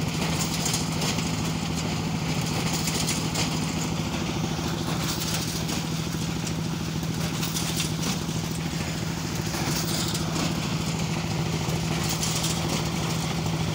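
A jhalar water-lifting wheel turning under power: a steady engine drone with water gushing and splashing continuously as the wheel's buckets empty into the channel.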